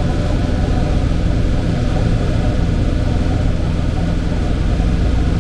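Old tractor engine running steadily at an even speed.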